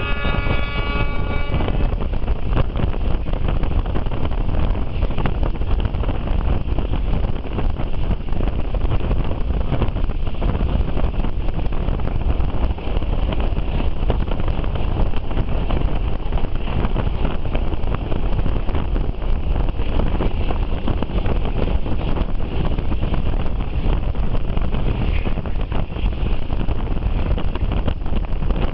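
Wind buffeting the microphone from the open window of a moving train, over the train's steady rolling rumble on the rails. The locomotive's horn is still sounding at the start and stops about a second and a half in.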